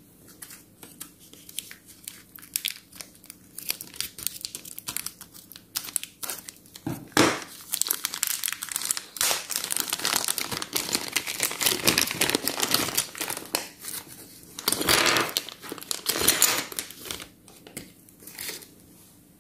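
A thin clear plastic bag crinkling as hands handle it and work it open to get small plastic toy pieces out. The crinkling comes in irregular spells, busiest in the middle.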